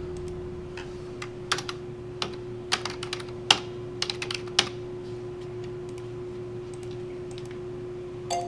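Typing on a computer keyboard: irregular key clicks for about four seconds, which then stop, over a steady hum.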